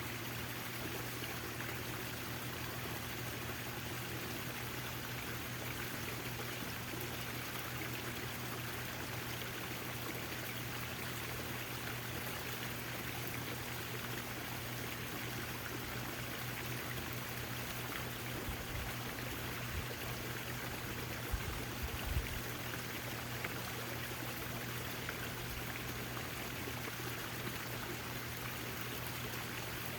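Backyard fountain's water splashing and trickling steadily, with a low steady hum underneath and a few soft low bumps about two-thirds of the way through.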